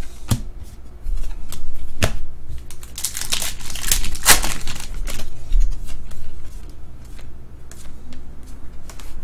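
Trading cards being handled: slid against one another, flicked through and set down on a stack, giving a run of sharp clicks and papery rustles, busiest about three to four seconds in.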